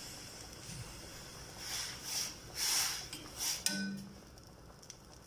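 Metal spoon scooping ground black pepper from a glass jar: a few short scraping strokes about two seconds in, then a sharp clink of metal near the end.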